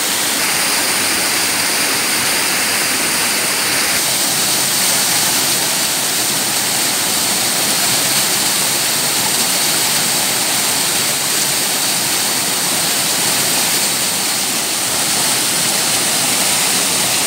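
Waterfall rushing steadily as it pours over rocks into a pool, a dense, even roar of falling water heard up close.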